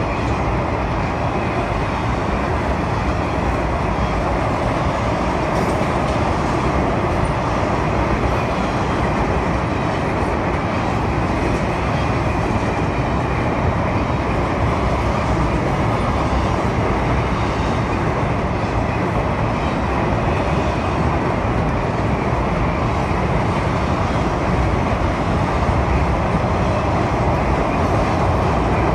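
Freight cars rolling across a steel trestle bridge: a steady, even rumble of wheels on rails that neither rises nor falls.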